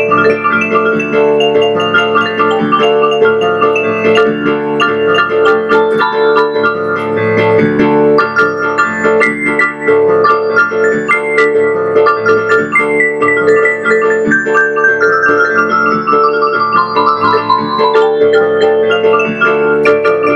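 Electronic keyboard with a piano sound, played freestyle by an untrained player. Notes run over a steady held tone and a repeating bass figure, and a long falling run of notes comes about two-thirds of the way through.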